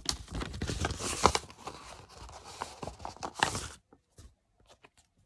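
Paper stickers being handled close to the microphone: crinkling and rustling with many small clicks. It stops about four seconds in, leaving a few faint ticks.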